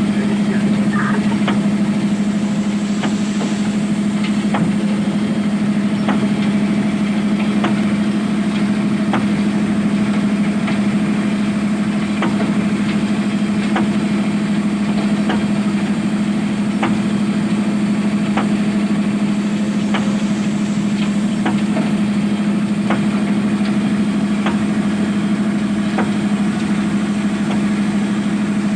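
Diesel engine of a Zoomlion ZE215E excavator running at a steady idle-like speed, with a light tick about every one and a half seconds.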